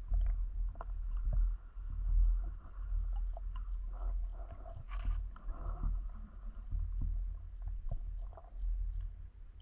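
Muffled underwater sound picked up through a camera's waterproof housing during a dive: a steady low rumble of water moving against the housing, with scattered small clicks and a brief hissing bubble noise about five seconds in.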